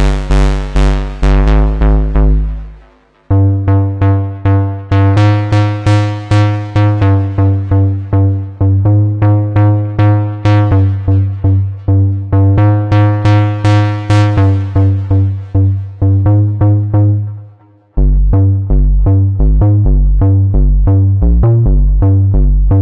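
Moog Subsequent 25 analog synthesizer playing a bright bass patch: a run of short, plucky low notes, each opening bright and quickly darkening. The line drops out briefly twice. About 18 seconds in it switches to faster notes that alternate between a low and a higher pitch.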